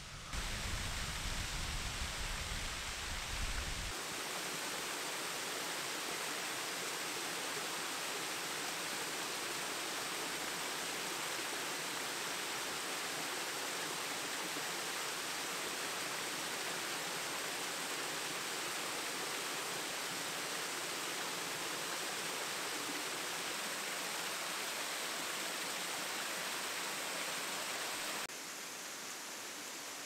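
Steady rush of a waterfall, an even hiss of falling water. A deep rumble lies under it for the first few seconds, and it drops a little in level near the end.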